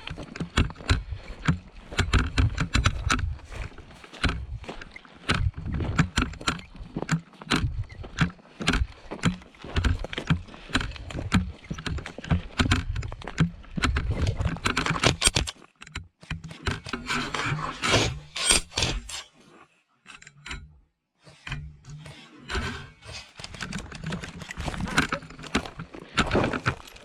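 Irregular rustling, scraping and knocking as a player moves with gear handled close to the microphone, with low rumbles from the microphone being jostled, busiest in the first half and dropping out briefly in the middle.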